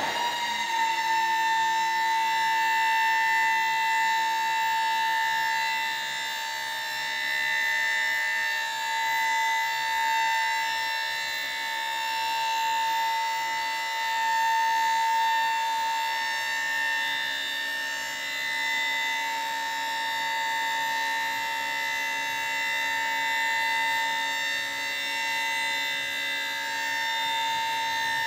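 The dump body's hydraulic hoist running as the raised body is lowered, giving a steady high whine that comes in at the start and holds without a break.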